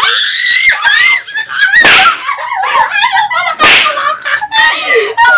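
Two women laughing hard with high-pitched shrieks and squeals, broken by two short noisy bursts about two and three and a half seconds in.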